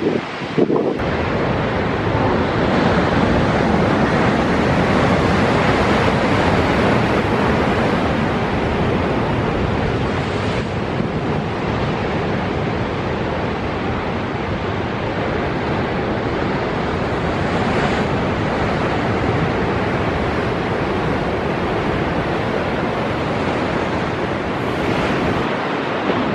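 Heavy sea surf breaking and churning against limestone cliffs, a continuous rushing wash of water, with wind buffeting the microphone.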